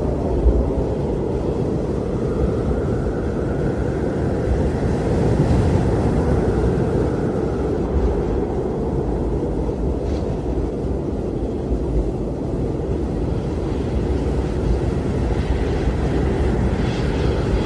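Blizzard wind blowing steadily with a low rushing sound and slow swells, and a faint whistling howl that rises and fades in the first half.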